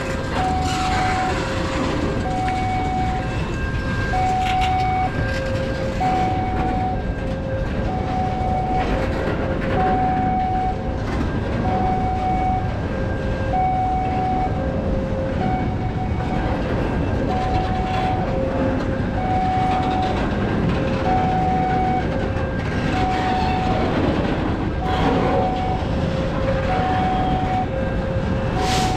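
Railway level-crossing warning alarm sounding: two alternating tones repeating evenly, without a break. Under it a train rumbles over the tracks, and a short sharp noise comes near the end.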